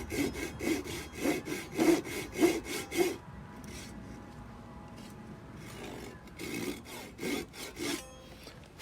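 Hand saw cutting a wooden tenon in quick, even back-and-forth strokes, about three a second: one run of about three seconds, a pause, then a second shorter run near the end.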